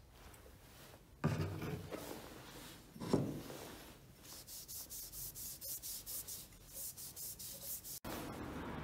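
Cloth rag rubbed back and forth along the metal barrel of an old grease gun, quick even strokes about three to four a second through the second half, after a couple of handling knocks.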